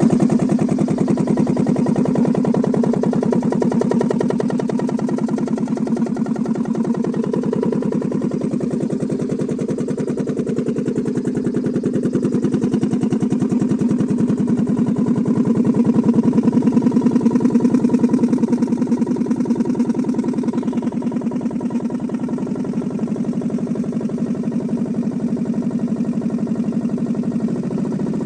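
Engine of a compressor machine used for rock blasting work, running steadily with an even, rapid pulse. It gets a little louder about two-thirds of the way through.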